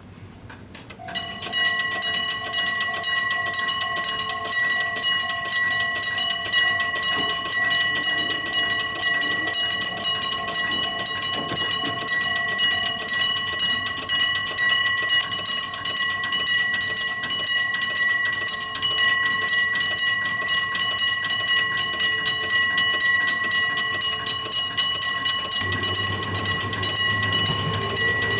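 Level-crossing electric bell (trembler-type 電鈴) starting up about a second in and ringing continuously, a fast metallic ringing that pulses about twice a second. Near the end the low rumble of an approaching train joins in.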